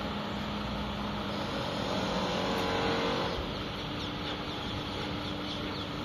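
Street traffic noise with a vehicle engine running: a steady hum whose tone rises briefly about two to three seconds in.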